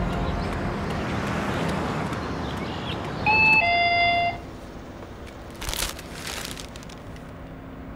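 Two-tone electronic shop-door entry chime, a higher note then a lower one, about three seconds in, signalling a customer coming into the convenience store. Music fades out before it, and a brief rustle follows about two seconds later.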